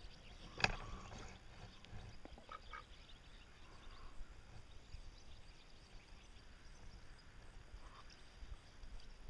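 Ducks quacking faintly a few times, with one sharp knock less than a second in.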